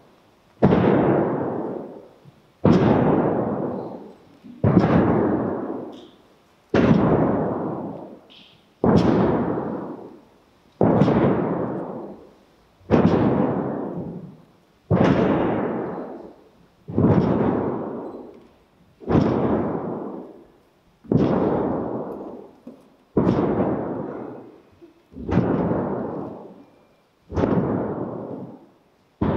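Slow, steady beating on a shaman's frame drum, one heavy stroke about every two seconds, fourteen strokes in all. Each stroke rings out in a long echo in the church hall before the next.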